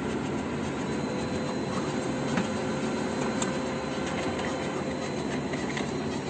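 Brother DCP-L2541DW laser printer running a copy job: steady motor and roller running with a faint high whine, and a couple of sharp clicks midway.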